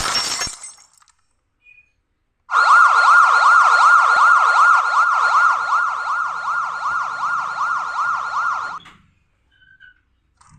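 A short crash at the very start, then about two seconds later a loud siren sounding in fast rising-and-falling sweeps, about four a second, for some six seconds before it cuts off.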